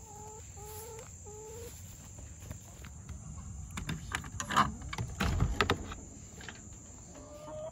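Hens giving three short calls, then the coop door's metal hasp latch being worked open in a run of sharp clicks and clacks, the loudest part, as the door swings open. A steady high cricket drone runs underneath.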